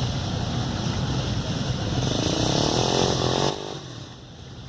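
A motor vehicle engine running with a low rumble, its pitch rising over a couple of seconds before the sound drops off abruptly about three and a half seconds in.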